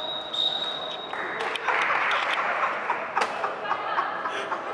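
Indoor tchoukball game noise in a sports hall. A high steady tone ends a little after a second in, followed by about two seconds of players and spectators shouting and cheering, with scattered ball bounces and knocks.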